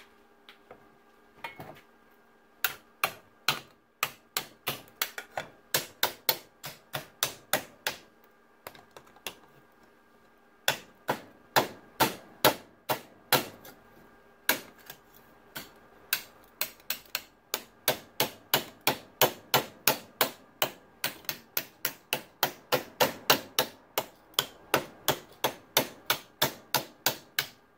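A hammer striking a curved strip of sheet steel over a wooden former held in a bench vise, shaping the curve of a replacement bonnet-brace section. Sharp, ringing metallic blows come about two to three a second in runs, with a couple of short pauses.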